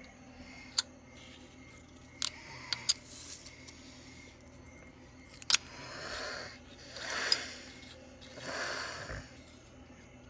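Pokémon coins being set down on a wooden tabletop: sharp clicks, one about a second in, a quick cluster of three a little after two seconds, and the loudest about halfway through. After that come three soft swishing sounds, each about a second long.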